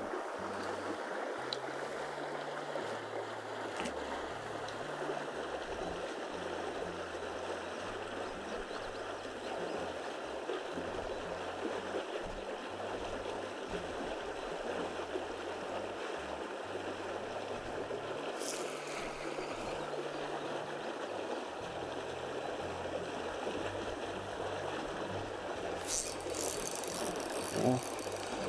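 Steady rushing of water from a small stream or outflow. A few short scratchy sounds come near the end.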